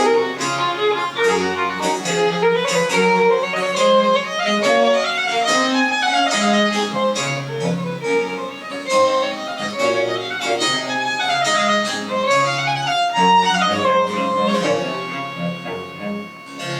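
French Baroque chamber music: a violin playing quick running notes over a low bass line, settling on a held note near the end.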